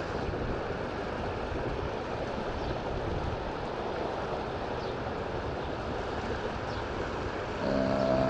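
Steady rushing of a river running high. Near the end a brief steady low tone with overtones sounds over it for under a second.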